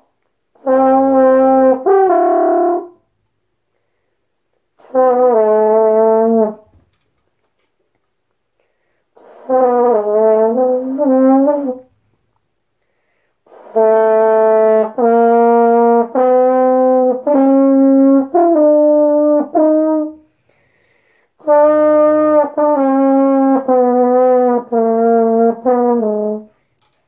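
French horn playing five short phrases of held notes with silent pauses between them. The longest phrase, in the middle, steps through about ten notes.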